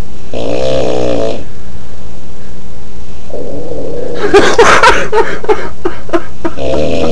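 A man snoring heavily. A wavering, rattling snore comes about half a second in. Around three seconds another starts and builds into a loud snort that breaks into a sputtering rattle of slowing pulses.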